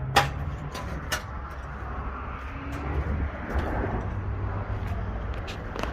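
Truck running with a steady low rumble, with scattered short clicks and rattles.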